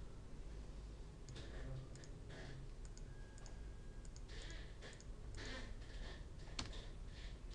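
Faint, scattered computer mouse clicks over a low steady hum.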